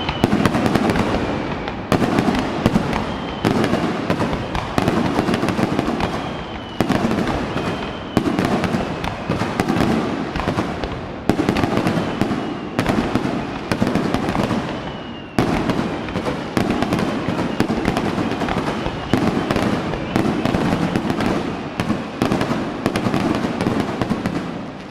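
Fireworks display: one burst after another, each starting sharply and fading in a dense crackle, a new one every second or two.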